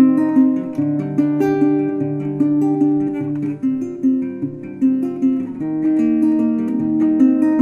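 Instrumental background music: a plucked guitar tune, note after note over a low accompaniment.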